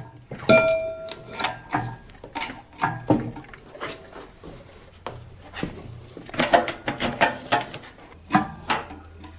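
Irregular metal clinks, knocks and scraping as a Caterpillar D4's steering clutch and brake assembly, hanging from an engine hoist, is worked on by hand. One knock about half a second in rings briefly.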